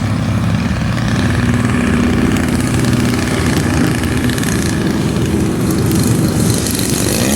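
The petrol two-stroke engine and propeller of a 50cc RC aerobatic plane running steadily at low throttle, growing louder over the first second as the plane passes closer.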